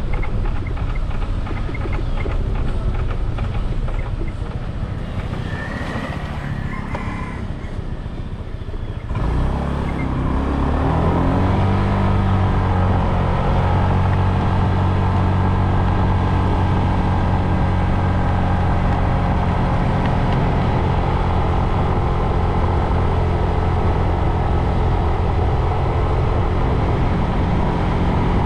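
Motorbike engine and road noise heard from the rider's seat. For about the first nine seconds it is uneven and lower at slow speed; then the engine note rises as the bike accelerates and settles into a steady cruising drone.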